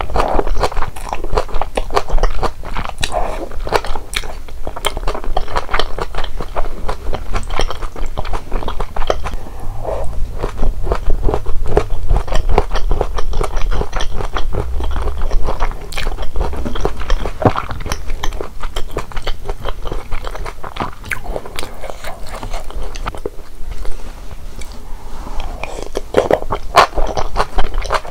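Close-miked mouth sounds of a person chewing and biting into malatang, a dense run of quick crunching clicks.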